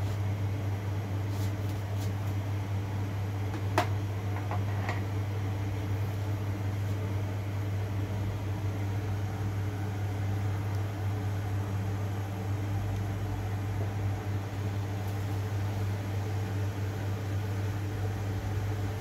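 Steady low hum with a faint even hiss, like a kitchen fan or appliance running. A few light clicks come in the first five seconds, the sharpest about four seconds in.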